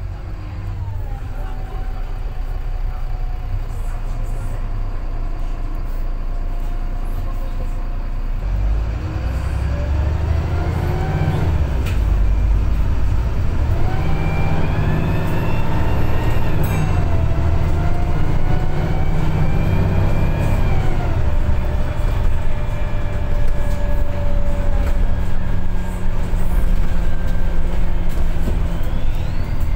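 VDL SB200 bus engine and automatic gearbox heard from inside the saloon: a steady drone, then about eight seconds in it pulls hard and the revs climb with a rising whine, dropping back at gear changes and climbing again twice, before settling into a steady cruise near the end.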